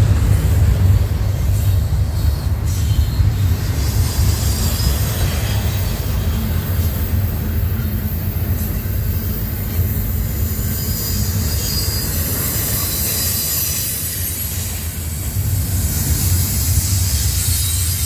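Double-stack intermodal container train rolling past at close range: a steady low rumble of the well cars' wheels on the rails.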